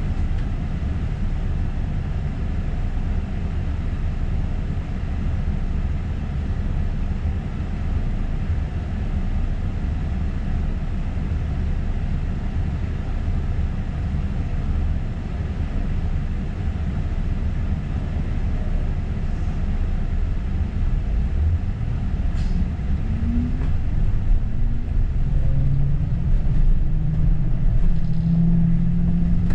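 London double-decker bus on the move: a steady low rumble, then about twenty seconds in a rising drive whine as the bus speeds up, settling into a steady hum near the end.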